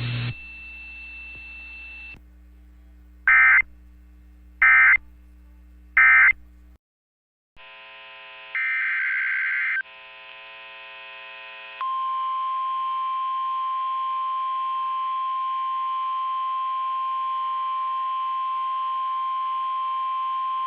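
Emergency Alert System alert starting on a NOAA Weather Radio receiver over a faint hum. Three short buzzing data bursts about a second and a half apart make up the alert's digital header, followed by another brief burst. Then the steady single-pitched 1050 Hz warning alarm tone sounds for about nine seconds.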